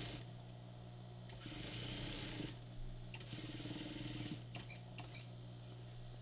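Sewing machine stitching a shirt cuff in two short runs of about a second each, followed by a few light clicks, over a steady low hum.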